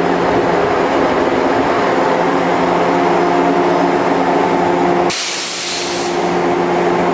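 Electric train standing at a terminal platform during the end changeover: a loud steady hum from its equipment, then about five seconds in a sudden loud hiss of compressed air blowing off, the brake air sound of switching the driving end.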